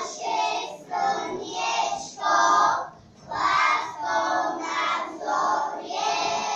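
A group of young children singing together, in short phrases with brief breaks between them.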